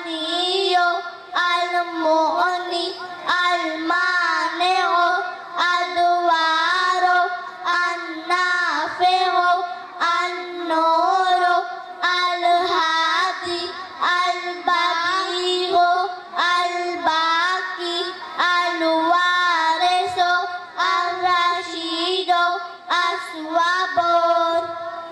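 A child singing a naat unaccompanied in a high voice, holding long notes that waver and slide between phrases.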